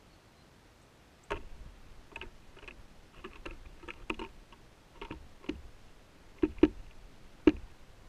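A tit landing and pecking right by the microphone on a wooden feeder table: a string of sharp, irregular taps, the three loudest near the end.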